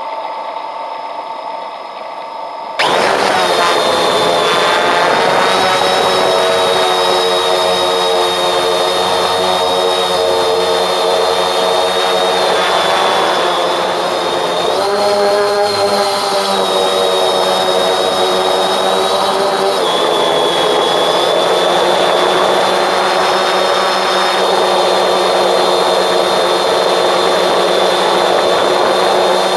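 Quadcopter drone's electric motors and propellers whining. It starts as a quieter whine, then jumps suddenly louder about three seconds in as the motors spin up. The pitch rises briefly about halfway through and settles a little lower soon after.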